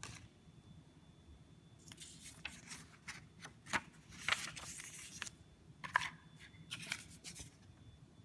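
Unboxing handling noise: packaging rustling and scraping with sharp clicks, in several bursts from about two seconds in until shortly before the end.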